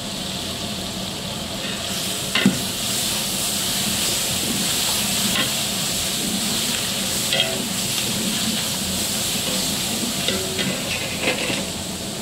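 Tomato-onion masala frying and sizzling in a large aluminium pot while a long steel ladle stirs it, the sizzle growing louder about two seconds in. The ladle knocks and scrapes against the pot every few seconds, the loudest knock about two and a half seconds in.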